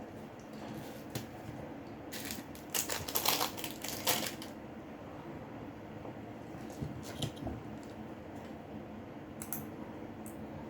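Small clicks and scratchy taps of hand tools working on a smartphone's internals during a microphone replacement, thickest about two to four seconds in, with a few single clicks later. A steady low hum runs underneath.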